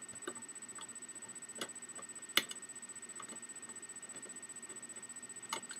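A few scattered light clicks and taps of small screws, a screwdriver and plastic parts being handled while an Xbox 360 Slim is taken apart. The sharpest click comes about two and a half seconds in, over a faint steady high whine.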